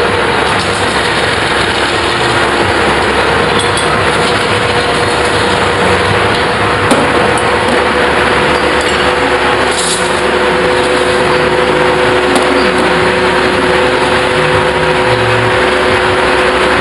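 Large metal-spinning lathe running steadily with a big sheet-metal dish turning on it, while a long hand lever tool is pressed against the spinning metal to form it. A loud, steady rushing noise with a constant hum.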